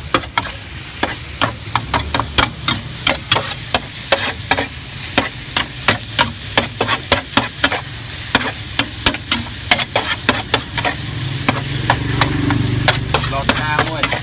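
Metal spatula clacking and scraping on a flat griddle while noodles with bean sprouts and chives are stir-fried, over a steady sizzle. The sharp clacks come about two or three times a second.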